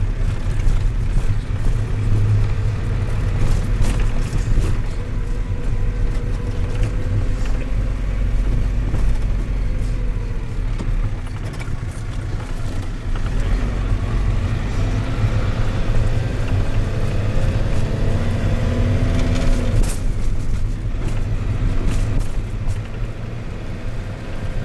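Engine and road noise inside a moving marshrutka minibus: a steady low rumble, with the engine note rising and falling as it drives, and a short click about twenty seconds in.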